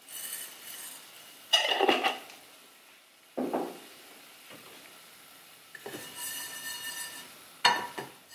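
Kitchenware being handled around a frying pan of sesame seeds toasting dry on a gas hob: several separate clinks and knocks of pan and glass, a second or more apart.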